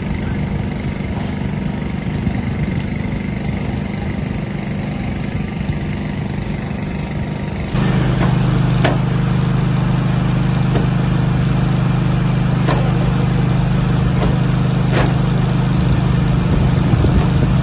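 Vehicle engine idling steadily; the hum becomes louder and steadier about eight seconds in.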